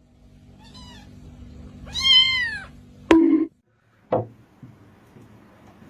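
Domestic cat meowing: a faint short meow just under a second in, then one loud meow that rises and falls in pitch about two seconds in. A sudden sharp sound follows about a second later, and a shorter one a second after that.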